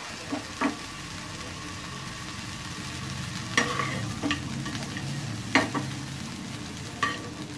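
Snake gourd seeds sizzling in hot oil in a frying pan while a metal slotted spoon scoops them out. Several sharp scrapes and taps of the spoon against the pan sound over the steady sizzle.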